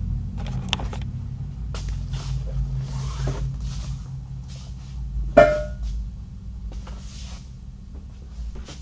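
Knocks and rustles of things being moved and handled, over a steady low hum. The loudest is a sharp knock with a brief squeak about five and a half seconds in.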